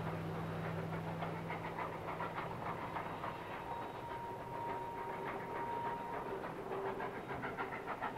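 Distant narrow-gauge K36 2-8-2 steam locomotive working along with its train, its exhaust chuffing in a steady, even rhythm. A low hum fades out in the first few seconds.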